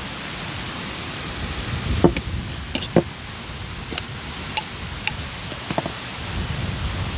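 Scattered light clicks and taps from handling food and utensils while seasoning chicken, the sharpest about two and three seconds in, over a steady outdoor hiss.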